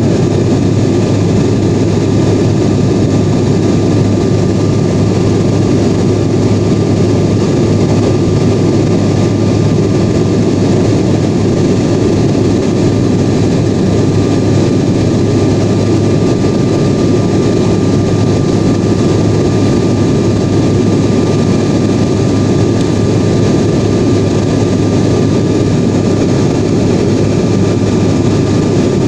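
Steady drone of an airliner in flight heard inside the passenger cabin: jet engine and airflow noise, unchanging, with a faint steady whine above it.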